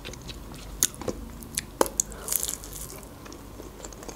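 Biting into and chewing a breaded chicken nugget close to a clip-on microphone, with a few sharp crunches and wet mouth clicks in the middle seconds.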